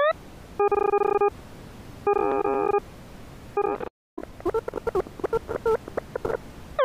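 Synthesized computer tones from the Desmos graphing calculator: two held buzzy tones, the second wavering in pitch, then a short one, and from about four seconds in a fast string of short chirps, several falling in pitch.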